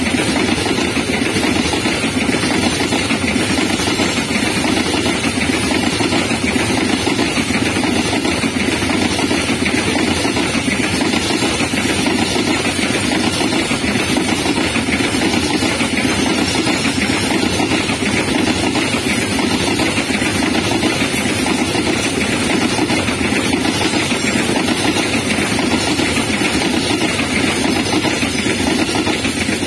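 Long freight train of open-top freight wagons rolling past close by: the loud, steady rolling noise of steel wheels on the rails.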